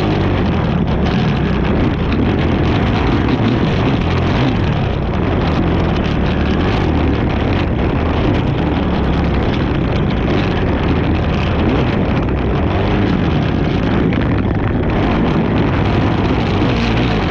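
Racing ATV engine running hard at speed, loud and steady with no letup, with wind noise on the microphone.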